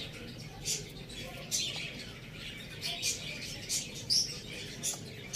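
Small birds chirping: a busy run of short, high chirps, several a second, from more than one bird.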